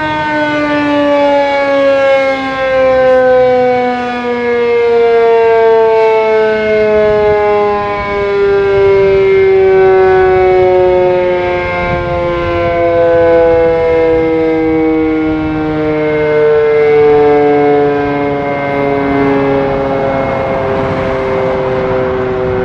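Sentry 3V8 and 7V8 outdoor warning sirens sounding together, two steady tones a few notes apart. Their pitch glides slowly down, and their loudness swells and fades every few seconds.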